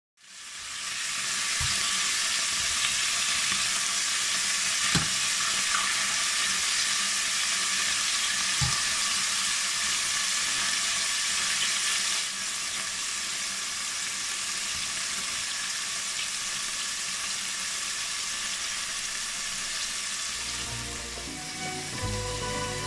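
Turkey pieces sizzling steadily as they fry in oil in a nonstick pan, with a few sharp clicks of metal tongs against the pan as the pieces are turned. Near the end a few low thuds come in.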